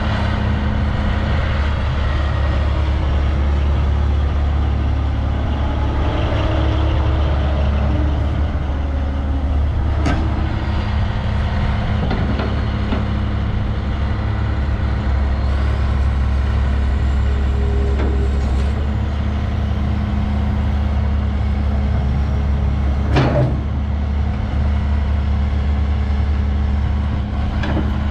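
Komatsu PC450LC-7 hydraulic excavator's six-cylinder diesel engine running steadily as the boom, arm and bucket are worked, with faint rising and falling hydraulic whines. Two sharp knocks stand out, one about ten seconds in and a louder one about two-thirds of the way through.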